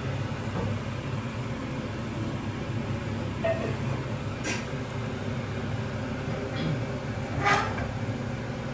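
A steady low hum runs under an omelette cooking in a frying pan on a gas stove. A metal utensil clinks sharply against the pan twice, about halfway through and near the end.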